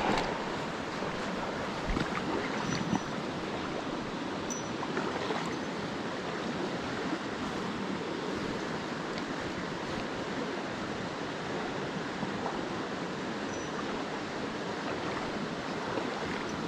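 Mountain stream rushing steadily over rocks, with a few brief clicks and short high peeps on top of the water noise.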